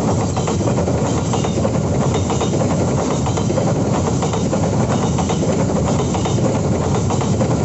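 A long freight train of open-top wagons rolling past at close range, a steady noise with a rapid clatter of wheels over the rails.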